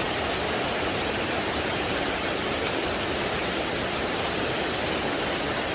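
Waterfall and creek water rushing in a steady, unbroken roar.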